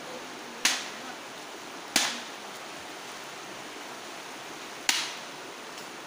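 Steady rush of flowing river water, broken by three sharp knocks: one just under a second in, one about two seconds in, and one about three seconds after that.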